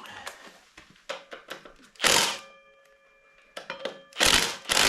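Metal tools clanking and knocking while the front axle nut is broken loose, a Ski-Doo clutch puller serving as the hex key. There are a few light clicks, then two heavy knocks about two seconds apart, the first leaving a brief metallic ring.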